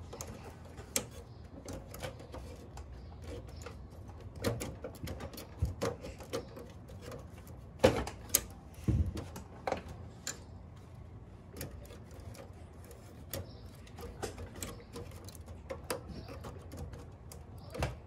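Irregular clicks and knocks of hard plastic and sheet-metal parts being handled inside an open server case, as the blue push-pin retainers and card bracket are pushed and pulled. The loudest knock comes about eight seconds in.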